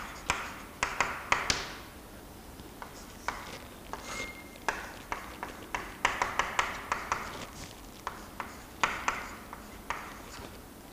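Chalk writing on a chalkboard: irregular quick taps and short scratches as letters and symbols are written, with one brief thin squeak about four seconds in.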